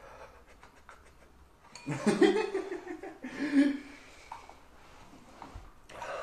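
A person laughing in two short bursts, about two seconds in and again a second later.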